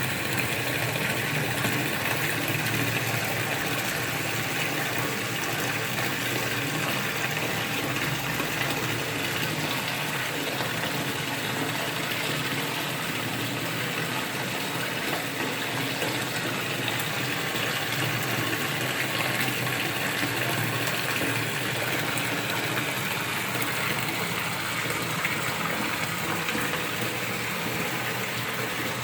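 Water from a small waterfall pouring steadily into a fish pond, an even splashing rush.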